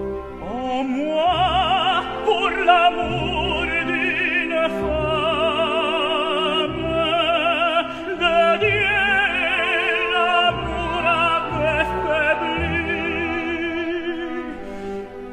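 Operatic tenor singing in French with a strong vibrato over an orchestral accompaniment.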